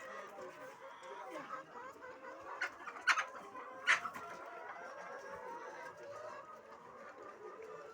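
A flock of laying hens clucking, many birds calling over one another without a break, with a few sharp knocks about three and four seconds in.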